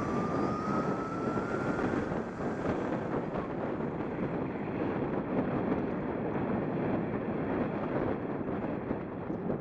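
Wind rushing over a helmet-mounted camera's microphone as an electric bike rides along, a steady noise. A thin whine, plausibly the bike's electric motor, rises slowly in pitch and fades out about two seconds in.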